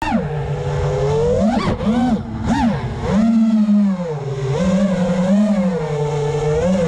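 FPV freestyle quadcopter's Amaxinno 2305 2550 kV brushless motors on a 5S battery, spinning Dalprop 5046 props: a loud buzzing whine that rises and falls with the throttle, with two sharp upward sweeps from about one and a half to two and a half seconds in. Wind rumbles on the onboard camera's microphone underneath.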